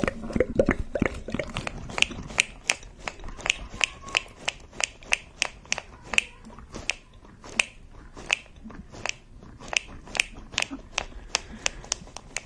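Close-miked ASMR mouth sounds: an uneven run of sharp, wet clicks and smacks, several a second.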